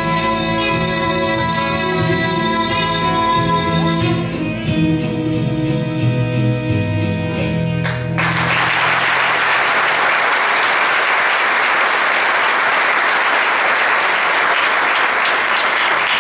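A girl's voice holds a long final note over the song's music. The music ends about halfway through, and a congregation breaks into steady applause.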